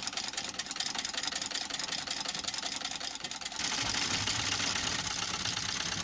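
Singer sewing machine stitching at speed: a fast, even mechanical clatter of the needle and works, getting louder about three and a half seconds in.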